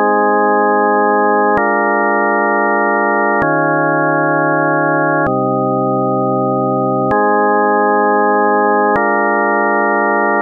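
Synthesized organ-like chords, each held steady for about two seconds, then switching abruptly to the next with a faint click. The four chords repeat in a loop.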